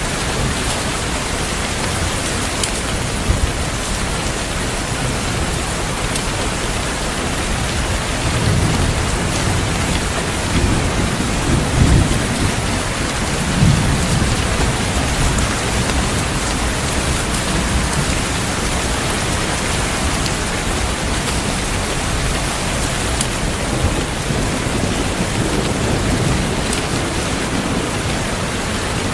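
Steady heavy rain falling, with low rolling thunder rumbling through the middle and again near the end.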